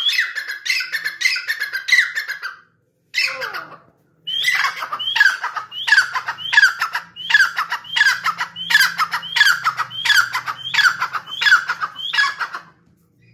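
Grey francolin calling: a loud series of shrill, repeated notes at about two a second. A short break about three seconds in holds one falling note, and then the series resumes and runs on until shortly before the end.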